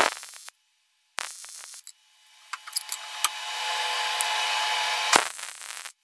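Wire-feed welder's arc crackling as a horseshoe is welded to a steel barrel bolt: a short burst about a second in, then a steady sizzling crackle from about two and a half seconds in that stops abruptly near the end, with a sharp pop shortly before it stops.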